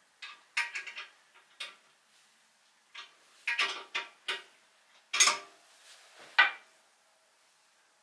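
Hard parts clicking and clattering against a porcelain toilet tank as they are handled inside it, in irregular clusters of knocks, loudest about five and six and a half seconds in.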